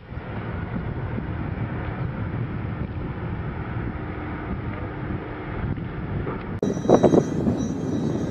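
Steady low rumble with wind noise on the microphone. About six and a half seconds in, it cuts abruptly to a louder scene with sharp crackling bursts and a few faint high steady tones.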